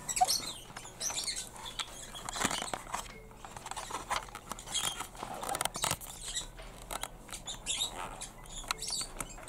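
Fingers handling the small plastic parts of a Polly Pocket playset: irregular little clicks, taps and scratchy scraping of plastic as a finger is pushed into a tight gap.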